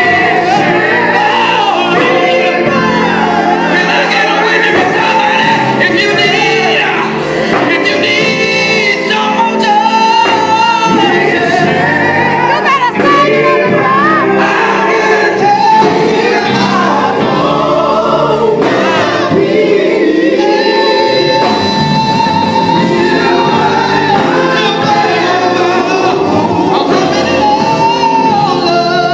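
A male gospel vocal group singing a slow song together, with long sliding held notes over steady low accompaniment.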